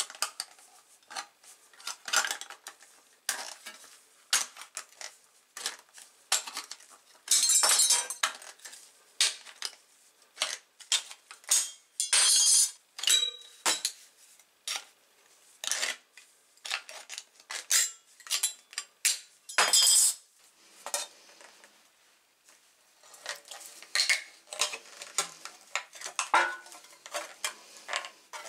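Restored TANG 300 tin snips cutting thin sheet metal: a quick, irregular series of sharp metallic snips and clicks, with a few louder, longer crunching bursts.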